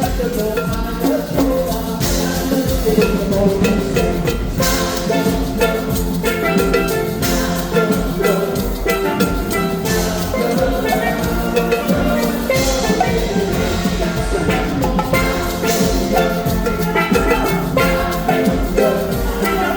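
Steel pan band playing an upbeat calypso-style groove. Double second steel pans carry the melody over marimba, a drum kit and hand percussion, with a steady beat of drum hits throughout.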